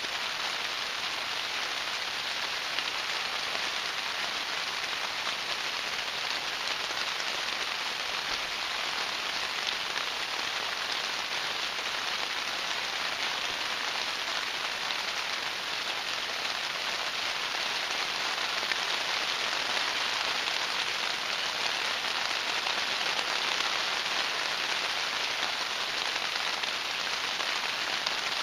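Steady rain falling, an even hiss that holds the same level throughout.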